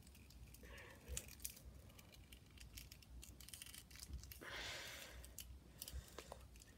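Faint clicks and soft rubbing of a Bandai S.H.Figuarts Piccolo figure's plastic parts as it is handled and its pieces are worked off and on, with a brief soft rustle about halfway through.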